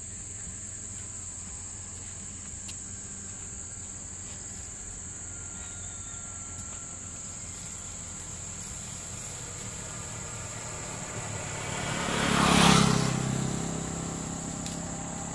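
Insects chirring in one steady, high, even tone over a low engine hum. About twelve seconds in, a loud rush of vehicle noise swells and fades as something passes along the road.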